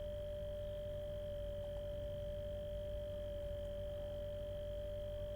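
Steady, unchanging electrical whine: a constant mid-pitched tone with a fainter high tone above it and a low hum beneath.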